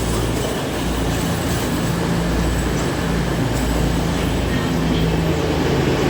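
Class 222 Meridian diesel-electric multiple unit coming into the platform, its diesel engines giving a steady low drone over the running noise of the train.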